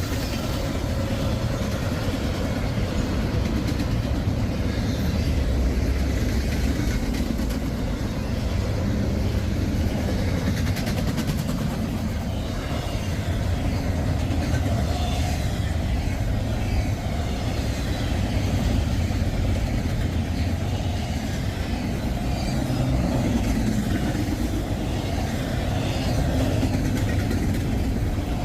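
Intermodal freight train rolling past at steady speed: a continuous rumble of wheels and cars on the rails, even in loudness throughout.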